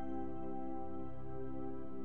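Background music of steady, sustained chords held without a break.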